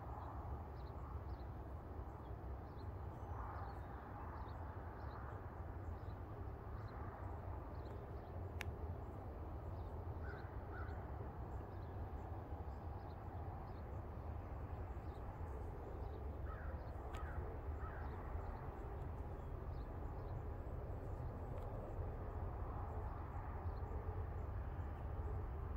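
Quiet trackside ambience: a steady low rumble with a few short bird calls, a pair about ten seconds in and a cluster of three around seventeen seconds, over faint high chirping.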